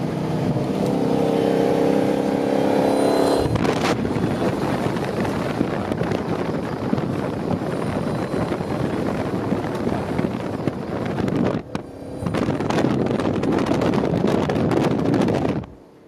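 Performance car's engine and exhaust running hard on the road. A steady engine note gives way about three and a half seconds in to a louder, rougher run with crackling from the exhaust. It dips briefly near twelve seconds, picks up again, and cuts off just before the end.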